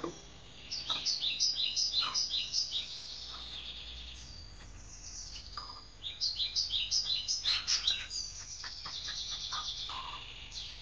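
A songbird singing: two runs of quick, repeated high chirps, one starting about a second in and another about six seconds in, with fainter chirping between and after.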